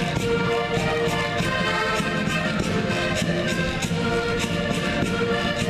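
Concertinas (button accordions) playing a Portuguese folk tune in held, reedy chords over a steady beat.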